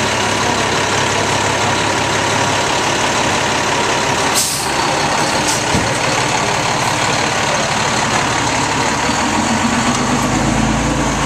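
Fire engine's diesel engine running steadily close by, a loud even drone, with a short sharp hiss of air about four seconds in.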